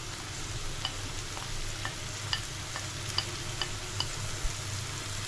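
Onion-tomato masala sizzling in a frying pan, with a utensil clicking lightly against the pan every half second or so as it is stirred. The spices (asafoetida and turmeric) have just gone in.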